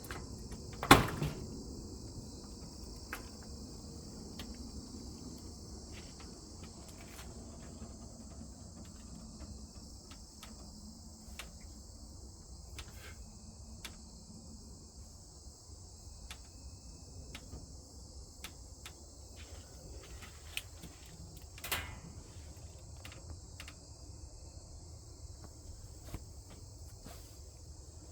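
Steady high-pitched insect chorus. A sharp knock comes about a second in, another about twenty-two seconds in, and faint clicks are scattered between them.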